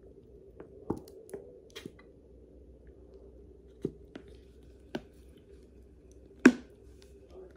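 A person drinking from a plastic soda bottle: scattered soft gulps and bottle clicks, then one sharp knock about six and a half seconds in, over a faint steady hum.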